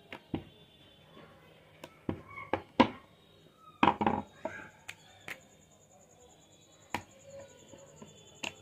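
Hands handling paratha dough on a wooden rolling board: scattered sharp taps and knocks, busiest around the middle.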